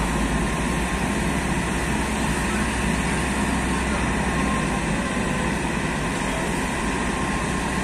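Truck-mounted crane's diesel engine running steadily, a continuous low rumble, with people's voices mixed in.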